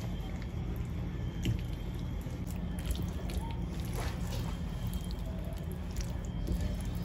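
Silicone spatula stirring and folding chopped chicken and bacon into thick béchamel sauce in a skillet: soft wet squelching and scraping with a few light clicks, over a steady low hum.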